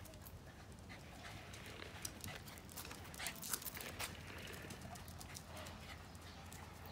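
Faint, irregular clicks of a Shiba Inu's claws and paws on wooden bridge boards as it walks.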